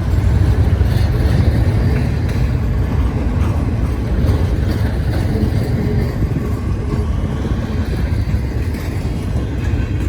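Long freight train's cars rolling past at close range, a steady loud rumble of wheels on rail.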